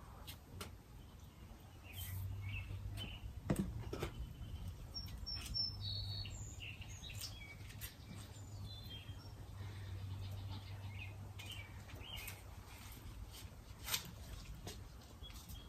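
Small birds chirping now and then, with a few sharp clicks and rustles from hands working plants and pots into soil.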